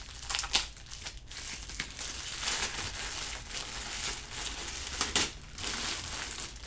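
Bubble wrap crinkling and rustling as it is handled and pulled off a Go bowl, with two sharper cracks, one near the start and one about five seconds in.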